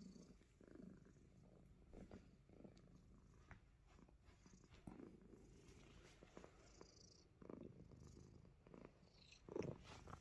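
Himalayan Persian cat purring faintly and steadily, with a few soft clicks and a brief louder noise near the end.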